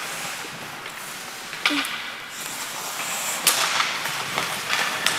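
Ice hockey play: skate blades scraping across the ice under a steady hiss, with a few sharp clacks of sticks and puck, the loudest about a second and a half in and again past three seconds.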